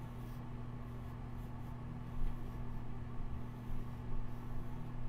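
Pencil drawing on sketchbook paper: a few faint, irregular strokes beginning about two seconds in, over a steady low hum.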